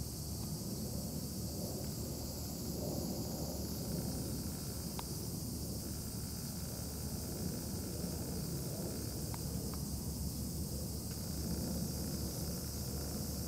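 Steady outdoor ambience: a low rumble and a high hiss, with a few faint ticks.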